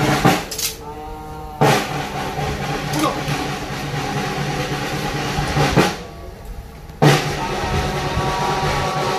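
Band music at a military honors ceremony: drum rolls and sharp drum strikes over steady held notes, with two brief pauses.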